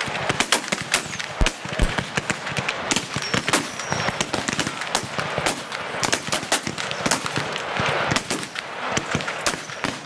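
A line of black-powder muskets firing in a ragged, overlapping volley, shots coming irregularly several a second without a pause.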